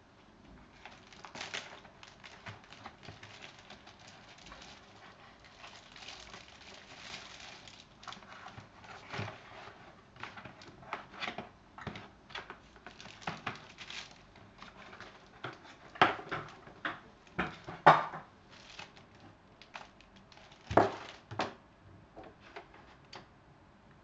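Packaging rustling and crinkling while a keyboard is unpacked and handled, with scattered clicks and a few sharper knocks, the loudest about two-thirds of the way through.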